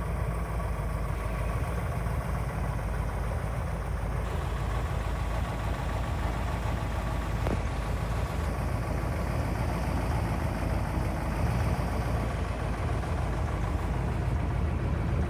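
1970 Plymouth Barracuda's 426 Hemi V8 idling steadily and evenly.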